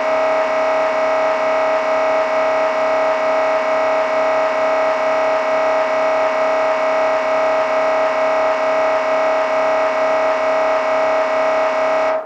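MRI scanner's gradient coils running a scan sequence: a loud, steady, buzzing tone with a regular pulsing, which cuts off abruptly near the end.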